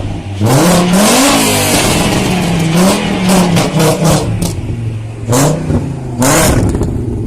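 VW Golf Mk2 engine revving, its pitch rising and falling several times, with a run of sharp cracks mixed in.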